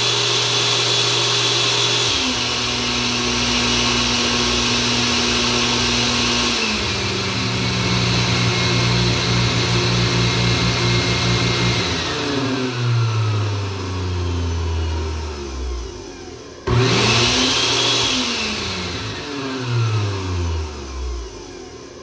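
Blender motor running and changing speed in steps as a rotary selector switches it between the voltage taps of a transformer, the higher the voltage the faster it spins. From about twelve seconds in it slows with a falling pitch, cuts out briefly, starts again near seventeen seconds and winds down once more.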